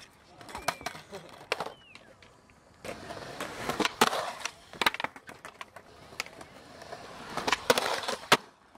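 Skateboard rolling on concrete, with sharp clacks of the board popping and landing: about a second in, around four and five seconds, and twice near the end. Between the clacks the wheels and trucks give a rough rolling and scraping noise as the board works a concrete ledge.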